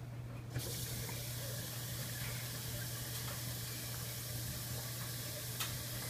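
Front-loading washing machine taking in water: a steady hiss of water spraying into the drum starts suddenly with a click about half a second in, over a steady low hum.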